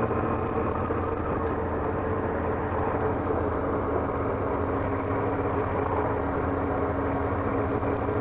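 Yamaha R6 inline-four motorcycle engine running at a steady pace while riding, heard through a helmet-mounted microphone, with wind noise over it.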